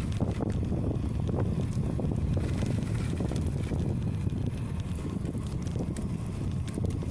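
Wind buffeting the microphone of a camera riding on a moving bicycle, a steady low rumble with many small knocks and rattles from the bike on the paved road.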